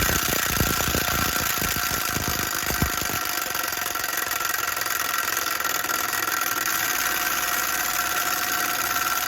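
Milwaukee Fuel impact wrench hammering continuously on a stuck hub, a rapid rattle with heavier blows in the first few seconds, without breaking it loose.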